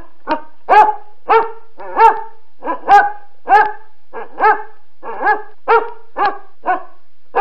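Basset hound barking repeatedly, about two short pitched barks a second.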